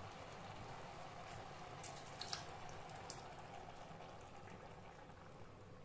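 Coconut milk poured into a pot of callaloo greens: a faint, soft pouring, with a few light clicks about two and three seconds in.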